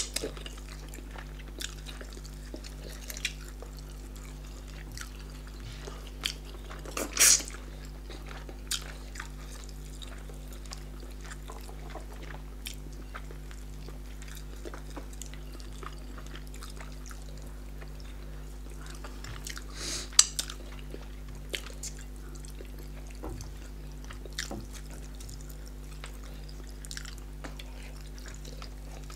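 Close-up eating sounds of fufu and pepper soup eaten by hand: wet chewing, lip smacks and finger licking, with two louder slurps about seven and twenty seconds in, over a steady low hum.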